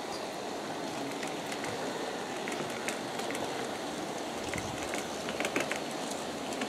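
1/29-scale Aristo-Craft G-scale model train, led by E9 diesel units, running on its track: a steady rolling rumble with scattered light clicks that come more often in the second half.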